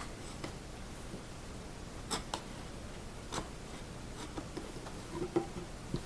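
A handful of light, separate taps and clicks, spread irregularly over several seconds, from the mandolin neck being handled and fitted into its dovetail socket on the body.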